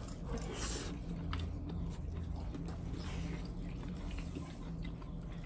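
Close-up eating sounds of potatoes and cream corn: soft chewing and wet mouth sounds with small clicks of spoons and forks, over a low steady hum.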